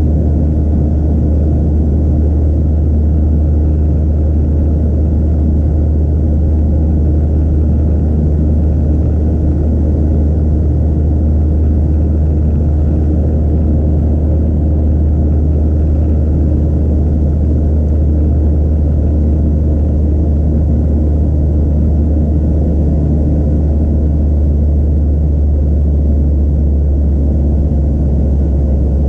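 Cabin noise of a Boeing 737-700 heard from a window seat over the wing: a steady deep rumble from the CFM56-7B engines and rushing air during the climb after takeoff, with a few faint steady tones above it.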